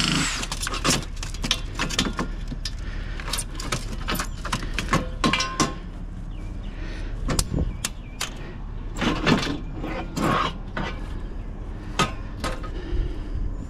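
Scrap metal parts being handled and dropped: a run of irregular clanks, knocks and clicks over a steady low hum.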